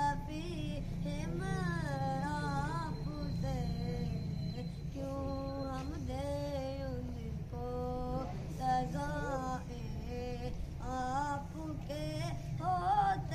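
A boy singing an Urdu naat solo and unaccompanied, in long phrases whose notes bend and waver.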